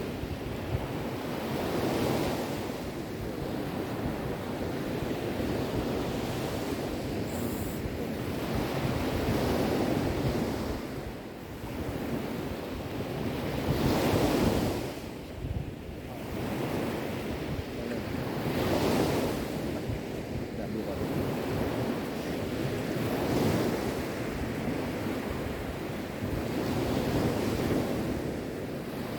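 Sea waves surging and washing on the shore in a steady rhythm, swelling and falling away every four or five seconds, with the biggest surge about halfway through.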